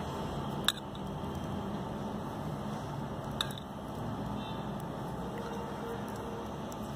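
Steady low background hum with two faint clicks, one near the start and one about three and a half seconds in.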